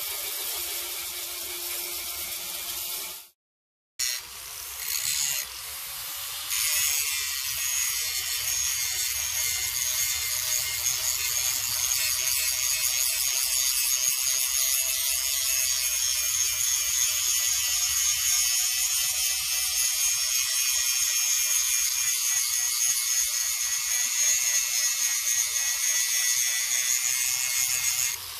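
Electric angle grinder with an abrasive disc grinding rust off a steel farm-tool blade: a steady high grinding rasp over the motor's steady whine. It cuts out for under a second about three seconds in, then runs on steadily.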